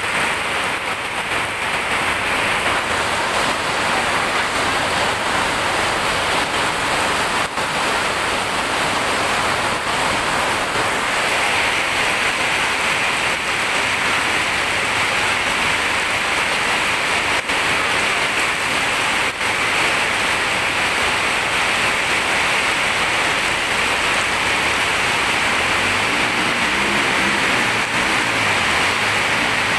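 Heavy rain pouring down onto a flooded road, a loud steady hiss. Near the end, a small engine's low hum joins in as a motor rickshaw drives through the water.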